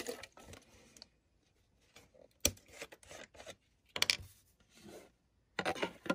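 Screw cap being twisted off a plastic bottle of India ink wash: short scraping and rubbing sounds, with one sharp click about two and a half seconds in.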